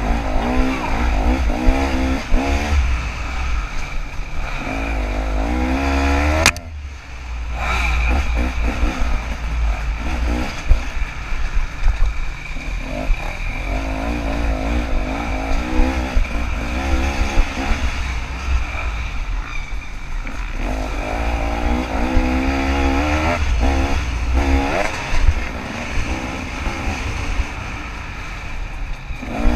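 KTM 300 two-stroke dirt bike engine heard on board, its revs rising and falling constantly as it is throttled on and off, over a heavy low rumble. About six and a half seconds in the engine sound drops away sharply for a moment, then picks back up.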